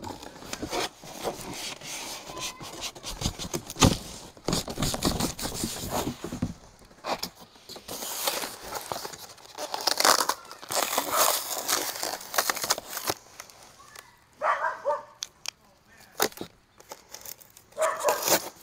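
Cardboard box and styrofoam packing being handled: irregular rustling and scraping with sharp knocks as the foam-packed blower is taken out of the box.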